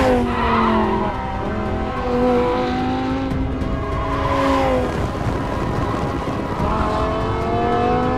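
Lamborghini Huracán's V10 engine being driven hard on a track. Its pitch falls in the first second, holds, falls again about four and a half seconds in, and climbs near the end as the car accelerates.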